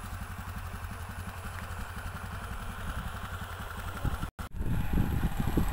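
Small engine running with a steady, fast chugging beat. About four seconds in the sound drops out for a moment and comes back louder, with rough, uneven low rumbling.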